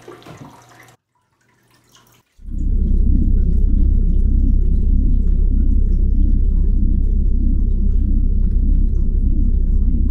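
A loud, steady, low rumbling drone that starts abruptly about two and a half seconds in, after a moment of dead silence.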